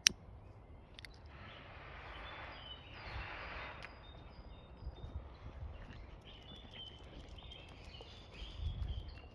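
Small birds chirping in short, high, repeated notes over outdoor background noise, with a single sharp click right at the start and a stretch of rustling in the first few seconds.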